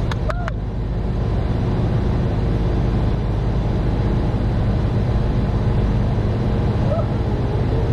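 AAON rooftop HVAC unit running steadily, with its compressors and condenser fans going together in a constant hum.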